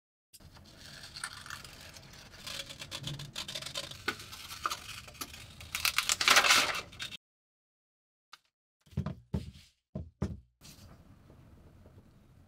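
Scissors cutting through a sheet of paper: a continuous crisp rustle and snipping, loudest a little past the middle, that then stops abruptly. After a short silence come a few light knocks, then a pen scratching faintly as it traces around a paper template.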